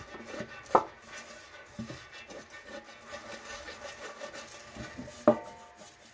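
Silicone pastry brush rubbing and scraping margarine over the inside of an aluminium cake tin in repeated short strokes. Two sharp knocks stand out, one about a second in and another about five seconds in.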